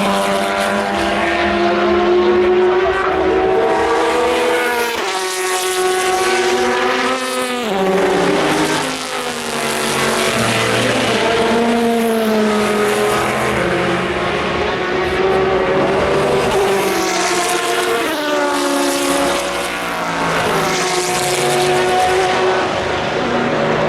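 Race cars' engines running hard as several cars go by in close succession, each engine note sweeping in pitch as the cars pass and overlapping with the next.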